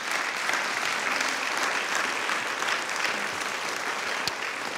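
Audience applauding steadily as a member is called to the stage, the clapping thinning out near the end.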